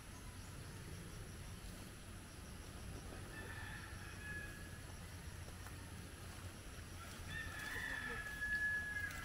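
A rooster crowing twice, the second crow longer and louder than the first, over a faint low background rumble.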